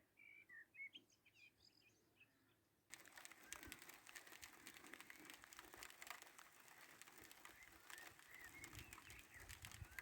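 Small birds chirping faintly in short rising notes. About three seconds in, a steady crackly hiss full of little clicks starts abruptly, with low rumbling toward the end, while a few bird notes continue.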